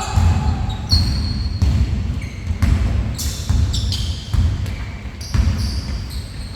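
A basketball bouncing on a court floor during play: irregular thuds, a few a second, with short high squeaks now and then.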